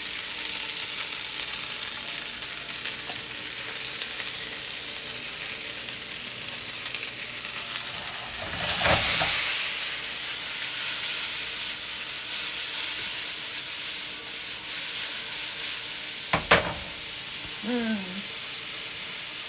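Mushrooms sizzling as they sauté in a pan, with stirring. The sizzle swells louder about halfway through, and there is a sharp knock near the end.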